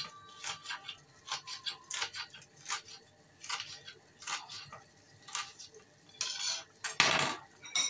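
Kitchen utensils and dishes being handled: a dozen or so light, irregular clinks and taps, with two louder, longer sounds near the end.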